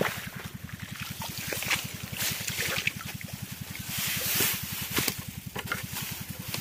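Water trickling and splashing in irregular bursts, over a small engine idling with a steady, fast low throb.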